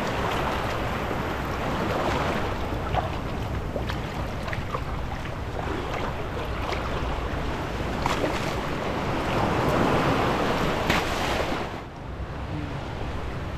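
Small waves washing in over the sand at the water's edge, with wind on the microphone. It is a steady wash that dips briefly near the end.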